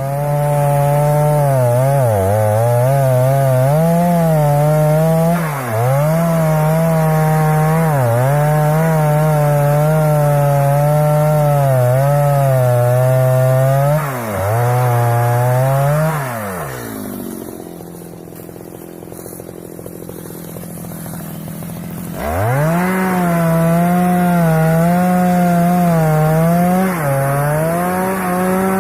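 Stihl two-stroke chainsaw cutting teak wood at high revs, its pitch dipping again and again as the chain bites under load. About seventeen seconds in the throttle is let off and the saw runs quieter for about five seconds, then it revs back up and cuts on.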